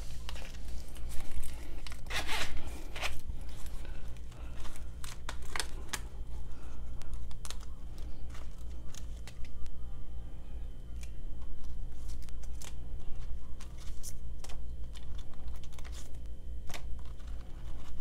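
Plastic cash-envelope sleeves and paper bills being handled: crinkling and rustling with scattered small clicks, loudest about two seconds in, over a steady low hum.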